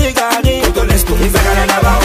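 Dance music with a fast, steady drum beat of about four hits a second, a heavy bass line and melodic lines above it.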